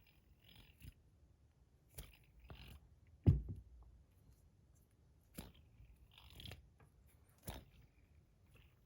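Small handling noises of a tungsten fidget spinner: a few scattered clicks and taps with soft rustling between, and one heavier knock a little over three seconds in.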